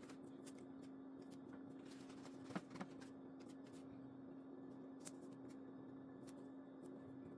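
Near silence: a few faint taps and rustles from handling sticker sheets and planner pages, over a steady low hum.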